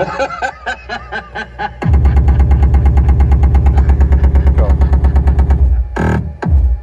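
Bass-heavy music playing loud through a car audio system, the head unit at full volume with the amplifier's limiter engaged. About two seconds in, a heavy, fast-pulsing bass line kicks in. It drops out briefly near the end, then comes back.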